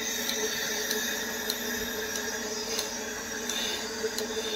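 Portable cow milking machine running: the vacuum pump hums steadily while the pulsator clicks regularly, about three clicks every two seconds, as the teat cups are fitted to the udder.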